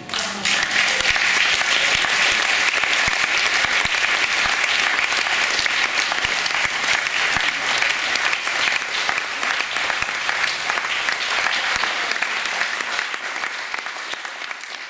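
Audience applauding: the clapping breaks out all at once, holds steady, then dies down near the end.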